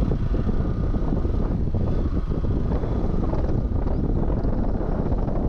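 Steady wind rumble on the microphone over the Hero Xpulse 200's single-cylinder engine while the motorcycle is ridden.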